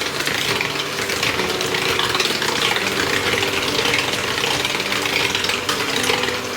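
Cake ingredients being stirred by hand in a mixing bowl, a steady scraping and rustling with no breaks. Quiet background music plays underneath.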